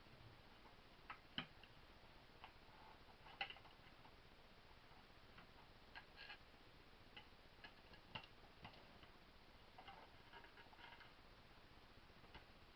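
Faint, irregular light clicks and taps of small metal parts and tools being handled while an air pistol is reassembled, with two sharper clicks in the first few seconds.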